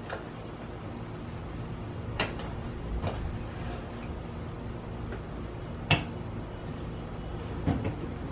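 Sun Oven solar cooker being folded up: a few sharp clacks and knocks as its leg and reflector panels are handled and closed, the loudest about six seconds in.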